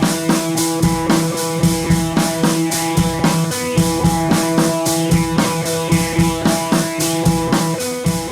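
Rock background music with a steady drum beat and guitar.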